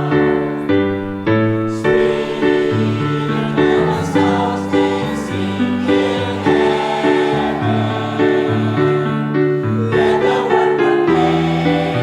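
A mixed church choir singing a gospel hymn in held chords, with instrumental accompaniment.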